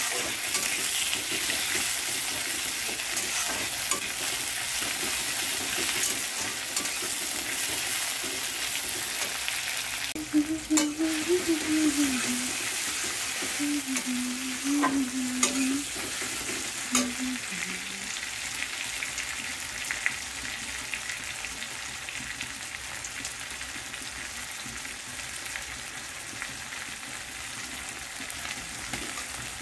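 Sliced onions and tomatoes sizzling in hot oil in a metal wok, with a steady hiss that eases slightly toward the end. A metal spatula stirs them, scraping and clicking against the pan, most often in the middle.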